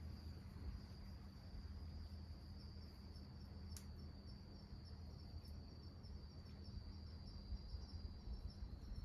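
Singing insects, crickets or similar: a steady high-pitched trill, joined about four seconds in by a second insect chirping in a quick even rhythm, over a faint low hum.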